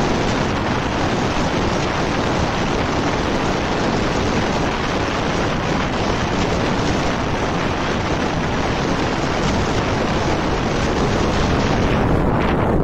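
Wind rushing over a roof-mounted camera's microphone on a vehicle moving at highway speed, a steady loud rush of noise. Near the end the hiss loses its top end.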